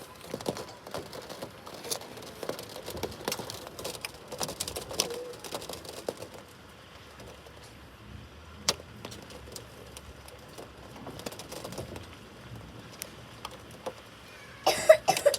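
Small hailstones ticking and clicking irregularly as they strike hard surfaces, with a louder cluster of knocks near the end.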